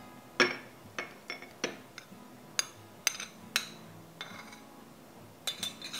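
A metal spoon clinking against ceramic bowls as chili sauce is spooned into a small dipping bowl. About a dozen sharp, irregular clinks, some ringing briefly, with a quick run of them near the end.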